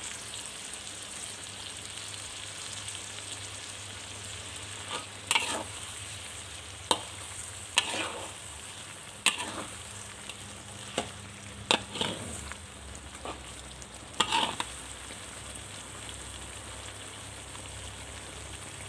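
Prawn sambal sizzling steadily in a wok, with a spatula knocking and scraping against the wok several times in the middle as the prawns and kaffir lime leaves are stirred through.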